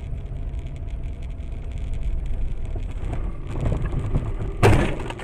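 Steady engine and road noise of a moving car, heard from inside through a dashcam, with small clicks and rattles. About four and a half seconds in comes one loud, short bang: a vehicle collision.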